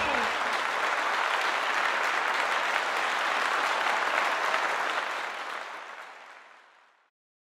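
Audience applauding steadily, the applause fading away about five to six seconds in.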